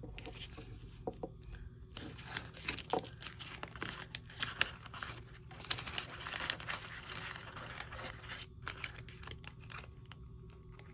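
Paper banknotes and a cash pouch being handled, crinkling and rustling with small clicks, loudest in the middle.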